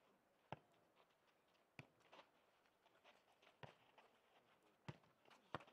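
Nohejbal ball being kicked and bouncing on the hard court during a rally: about five sharp, separate thuds, roughly a second or so apart.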